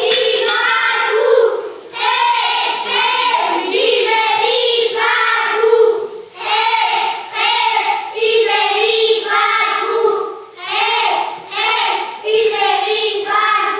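A group of children singing a song together in unison, in short phrases with brief pauses between them.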